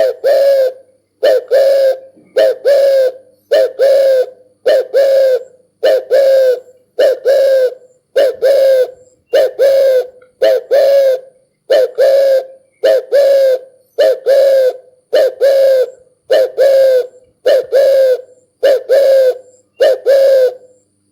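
Spotted dove cooing loudly, a short doubled coo repeated steadily about every 1.2 seconds.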